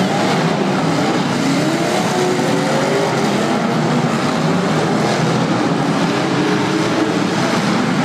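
Several demolition derby car engines revving at once, their pitch rising and falling over a steady wash of noise.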